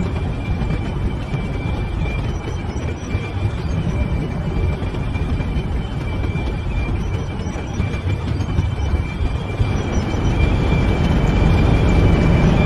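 Heavy opencast mining machinery, such as a bucket wheel excavator and its conveyors, running steadily: a dense low rumble with a steady high-pitched whine over it, growing louder about ten seconds in.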